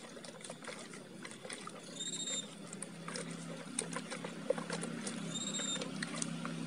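A hand stirring chopped weed leaves in water in a paint bucket: soft, irregular splashing and rustling clicks over a low steady hum. Two short high whistles come, about two seconds in and again about five seconds in.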